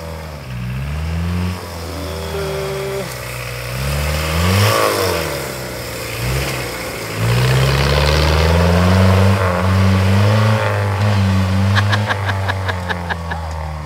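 A modified off-road 4x4's engine revs up and down repeatedly as the vehicle works through a grassy obstacle course, running harder and steadier for the second half. A rapid run of clicks comes near the end.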